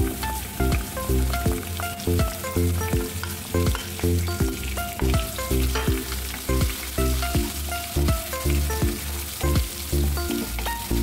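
Minced garlic and chopped red onion sizzling in hot oil in a pan, stirred with a wooden spatula, under background music with a steady beat.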